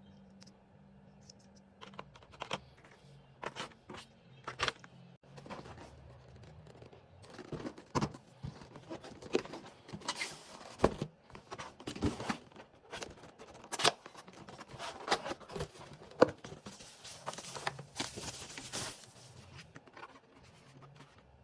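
Hands handling the packaging of a keyboard kit being unboxed: scattered sharp clicks and knocks, then a run of denser rustling and scraping of box and wrapping, with a hissy crinkle near the end.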